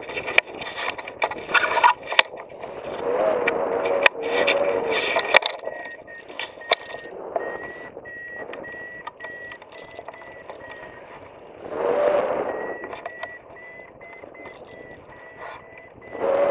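Wind noise buffeting the camera microphone on a hang glider in flight, coming in gusts, with a few sharp knocks in the first five seconds. From about a third of the way in, a thin steady electronic tone from the glider's variometer sounds under the wind.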